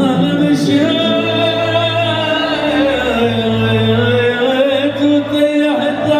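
Iraqi dabke wedding music, amplified: a man singing long, held and gliding notes over the band with a steady bass line.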